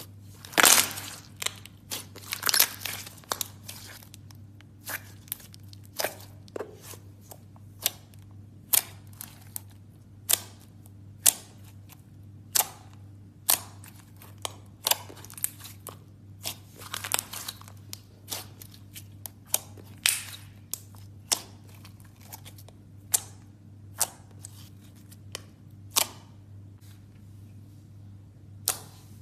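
Slime being squeezed and poked by hand, giving sharp pops and clicks at an irregular pace of about one a second, with a denser cluster of crackles in the first few seconds. A faint steady low hum lies underneath.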